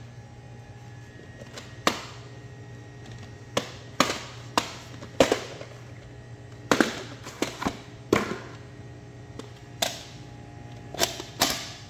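Plastic VHS cassettes and their cases being handled and set down: about a dozen irregular clicks and knocks, over a low steady hum.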